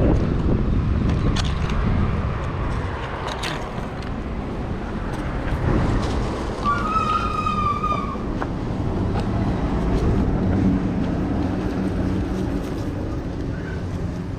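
Road traffic passing: a steady low noise that swells and fades, with a brief high-pitched tone lasting about a second near the middle.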